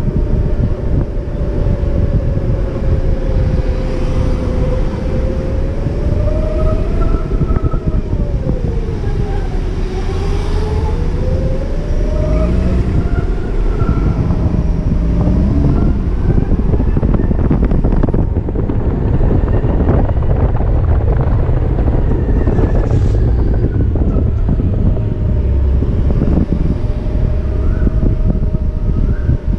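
BMW C-Evolution electric scooter riding in traffic: the drive motor's whine falls in pitch as it slows about ten seconds in, then rises again as it picks up speed. Under it, wind buffets the microphone with low rumbling road noise.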